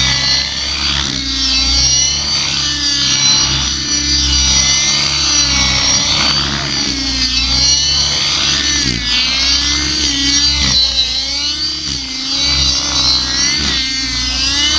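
Compass Knight RC helicopter flying aerobatics: its high-pitched motor and rotor whine rises and falls in pitch over and over as it flips and swoops.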